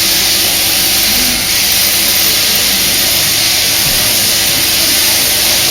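Sheep-shearing handpiece running steadily, its comb and cutter working through the wool on the sheep's last side.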